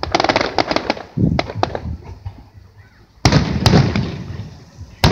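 Aerial firework shells bursting: a quick string of sharp cracks in the first second, a duller boom just after, then a loud bang a little past three seconds with a second close behind, trailing off in a rumbling echo, and another sharp bang at the end.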